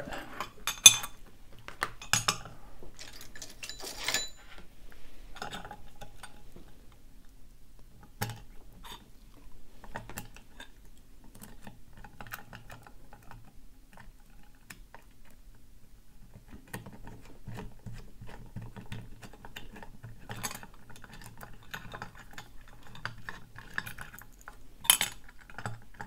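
Small metal clicks, scrapes and clinks of a Master Lock deadbolt's pin-tumbler core being taken apart by hand with small tools, working its back cap off. A sharp clack about a second in, with a few more sharp clicks later on.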